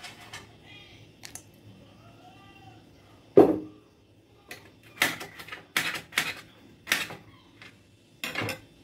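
About a dozen irregular sharp clicks and taps. The loudest is a little over three seconds in, and a quicker run of them follows in the second half.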